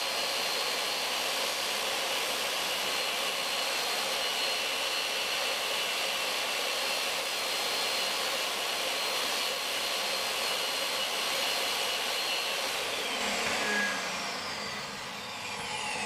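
Table saw, its blade tilted to 45 degrees, running with a steady high whine while a strip of thin plywood is fed along the fence to shave a small chamfer on its edge. About 13 seconds in the saw is switched off and its whine falls steadily in pitch as the blade spins down.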